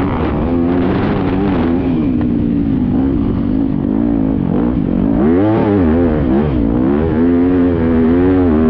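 Dirt bike engine heard from the rider's onboard camera while riding, revving up and down as the throttle is opened and rolled off. The swings in pitch grow wider about halfway through.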